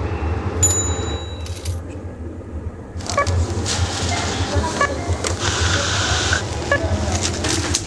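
A cat shifting in a rope basket and pawing a plastic ball: rustling and scratching with light clicks and clinks, louder from about three seconds in, over a steady low hum.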